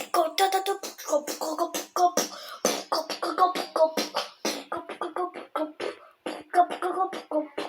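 Brazilian funk montagem: a fast beat of sharp percussive clicks under short, chopped vocal fragments.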